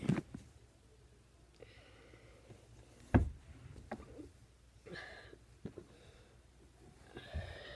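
A quiet room with faint breathy sounds from a child close to the microphone and a few knocks from handling, the loudest about three seconds in.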